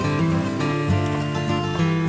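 Background music with acoustic guitar.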